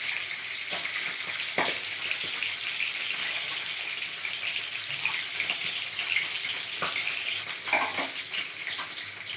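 Small rupchanda (pomfret) pieces and a fish head sizzling and crackling steadily in hot mustard oil in a steel kadai. A few sharp taps and scrapes of a steel spatula against the pan come through as the fried fish are turned and lifted out.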